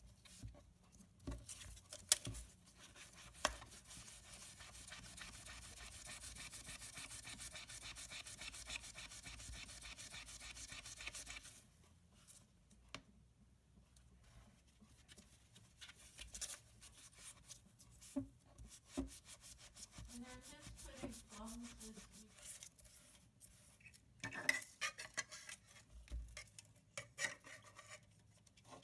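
Faint scrubbing of a small rubber belt with a Magic Eraser melamine sponge in a sink, working at a stain: a quick, even rubbing for about seven seconds, then scattered small clicks and a few short squeaks.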